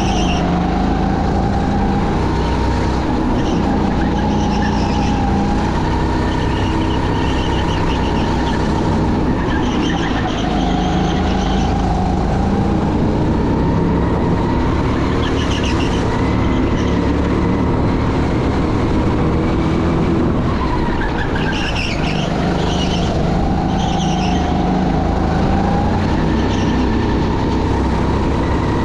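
Racing vehicle engines running without a break, their pitch wavering slowly up and down, with short high-pitched squeals in several clusters.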